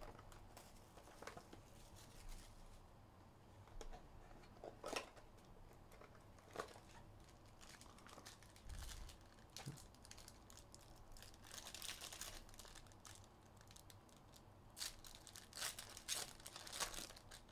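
Faint crinkling and tearing as a foil trading-card pack wrapper is opened by hand, heard as scattered short crackles that bunch together about two-thirds of the way through and again near the end.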